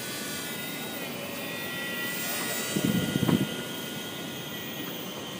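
Lite Hawk Exciter toy quadcopter's small electric motors and propellers whining steadily, the pitch drifting slightly as the motor speed changes. A brief loud low rumble, like a gust on the microphone, about three seconds in.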